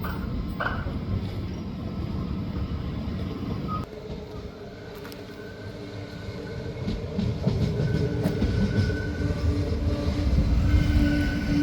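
NS DDZ double-deck electric train running through the station, its rumble growing louder from about halfway through as it comes closer, with steady whining tones over the wheel noise.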